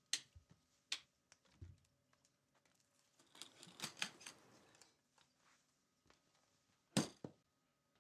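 Sharp mechanical clicks and handling sounds: the click of a tweed-covered guitar amp's standby switch being flipped at the start, then a run of clicks and rattling as the latches of a guitar case are opened about halfway through, and one more loud click near the end.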